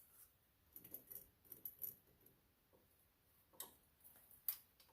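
Near silence broken by a few faint, irregular metallic clicks and ticks of hand tools being handled on a seized bolt, a small cluster in the first two seconds and two single clicks near the end.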